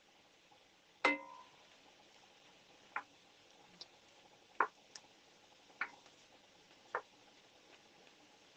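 Wooden spoon knocking against a cast-iron pan while stirring chicken and onion: a handful of separate knocks about a second apart, the loudest about a second in with a brief metallic ring.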